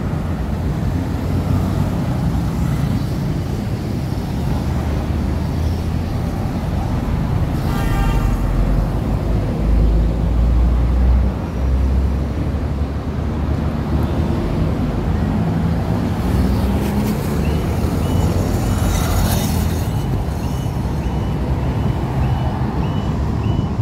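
City street traffic: engines and tyres of vehicles going by in a steady low rumble, loudest as a vehicle passes close about ten seconds in.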